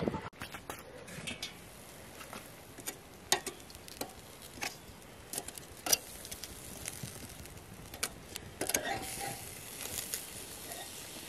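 Pork chops and vegetable skewers grilling over charcoal in a small kettle grill: a faint sizzle, with scattered sharp clicks as metal tongs turn the meat on the grate.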